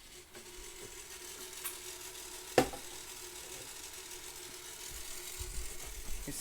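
Steady hiss and a faint hum from VHS tape playback after the programme has ended, with one sharp click about two and a half seconds in.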